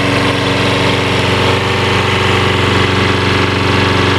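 Toro Personal Pace Recycler lawn mower's Briggs & Stratton 190cc single-cylinder engine running steadily, with an even, fast pulsing beat.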